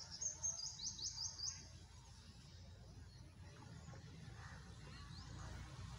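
A small bird chirping: a quick run of about half a dozen high, falling chirps in the first second and a half, then one short rising note near the end, over a steady low outdoor rumble.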